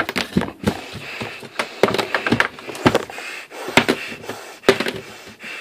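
Spent brass bullet casing clicking and clattering on a hard tabletop: a series of irregular sharp taps as it is flipped, set down and picked up again.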